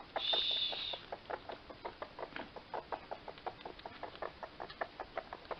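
Baby raccoons chittering: a rapid string of short calls, several a second. A shrill, high cry lasting about a second in the first second is the loudest sound.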